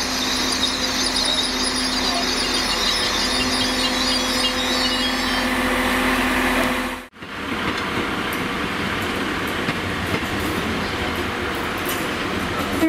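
Transport for Wales Class 197 diesel multiple unit on the move: a steady engine hum with a high squeal from the wheels that dies away after about five seconds. After an abrupt cut about seven seconds in, a steady rail rumble follows as a GWR Intercity Express Train approaches.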